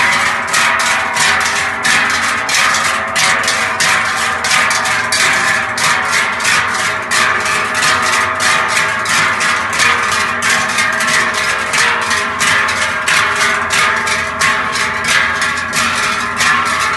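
Treicheln, large hammered sheet-metal Swiss cowbells, swung together by a marching group, clanging in a steady rhythm of about three strokes a second.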